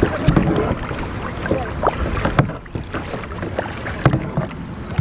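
Kayak paddling: water splashing and sloshing around the paddle and hull, with irregular short splashes and knocks.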